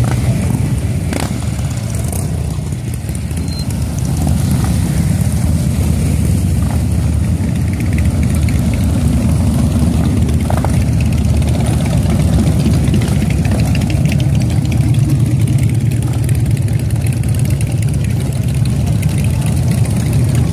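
A procession of large touring motorcycles riding past slowly, many engines running together in a steady low drone, dipping slightly a few seconds in.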